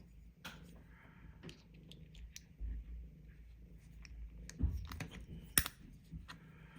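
Small clicks and taps of a magnetic fidget slider being handled and prised apart with a thin pointed tool, its magnet-held parts clicking loose and back together; two sharper clicks come near the end.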